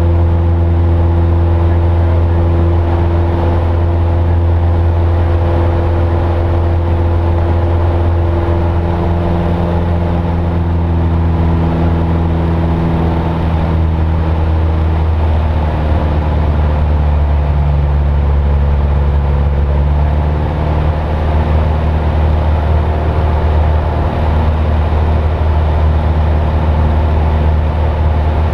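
Single-engine light airplane's piston engine and propeller droning steadily, heard inside the cockpit. The engine note shifts a little about halfway through.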